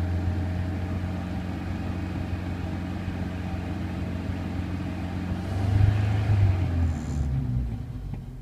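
Morris 1476 cc four-cylinder sidevalve (flathead) engine running with its revs held up, steady. It swells louder for a moment about six seconds in, then eases back toward idle near the end.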